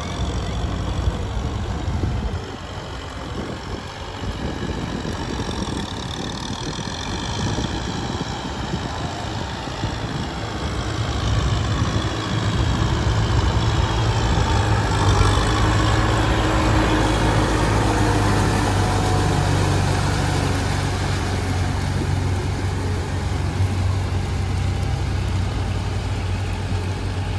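Kubota M6040SU tractor's diesel engine running steadily under load as it pulls a rotary tiller through a flooded rice paddy. It grows louder as the tractor comes close, about halfway through, and eases a little as it turns away.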